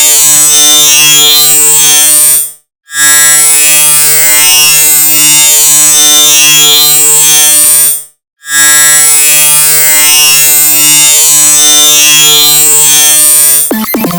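The drunk squirrel laughing sound effect layered on itself countless times, merging into a loud, steady, buzzing drone. It cuts out for a moment twice, and just before the end gives way to a different, rattling sound.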